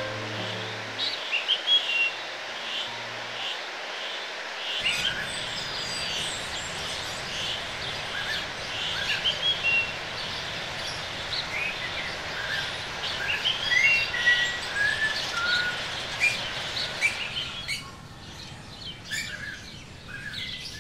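Rainforest birds calling, many short chirps and whistles, over a steady background hiss. Music fades out in the first few seconds, and the hiss drops away near the end.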